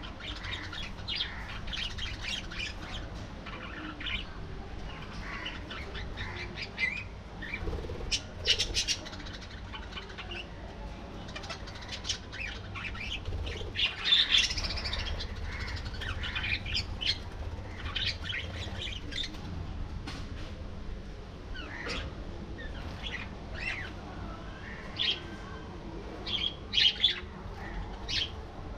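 A flock of budgerigars chattering and chirping continuously, with a few louder squawks standing out, one about halfway through and a couple near the end.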